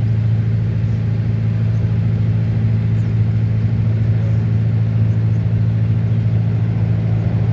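Sightseeing boat's engine running steadily with a loud, low, even drone.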